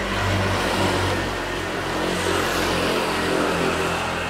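A motor vehicle passing on the road: a steady engine hum with a rushing noise that builds through the middle and eases off near the end.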